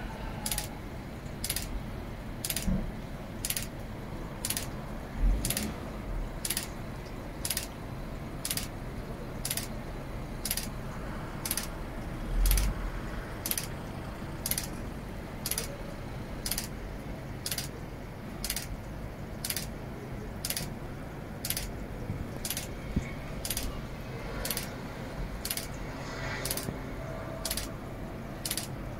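Steady, evenly spaced ticking clicks, nearly two a second, over a background hiss, with two short low thumps about five and twelve seconds in.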